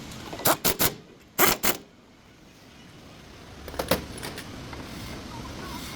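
Clusters of short metallic clinks and rattles: three quick ones about half a second in, the loudest and longest near a second and a half, and a few more around four seconds.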